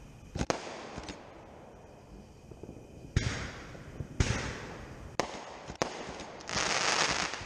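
Consumer aerial fireworks going off: a string of sharp bangs spaced about a second apart, then near the end a dense hiss lasting about a second.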